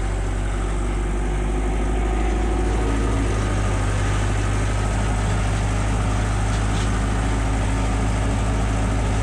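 Diesel engine of a two-axle mountain tractor running steadily as it works across a hay meadow with a front-mounted rake: a constant low drone.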